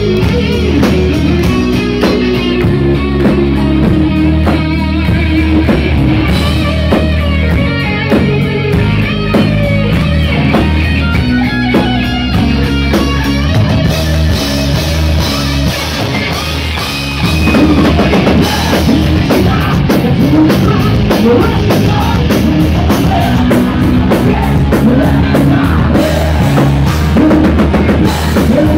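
Heavy metal band playing live, with electric guitars and a full drum kit, loud throughout. The music gets louder and fuller about seventeen seconds in.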